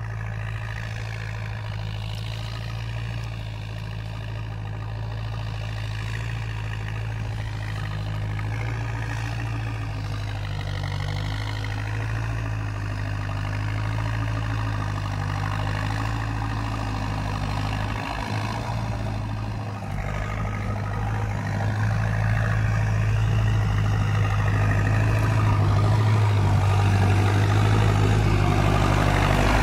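Farm tractor's diesel engine running steadily under load while plowing, with a low hum. It grows gradually louder as the tractor draws near.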